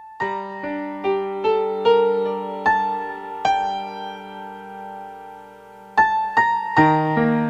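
Piano music: a slow line of single struck notes over a low held chord, pausing on a sustained chord midway, then the notes pick up again near the end.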